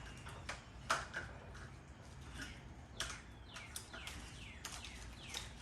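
Light clicks and taps of parts being handled while the motorcycle's wiring is worked on, the sharpest about a second in. In the second half a bird gives a run of quick descending chirps, over a low steady hum.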